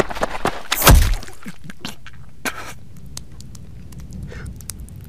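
A loud thud about a second in, among scattered knocks and clicks, with a second heavy knock midway.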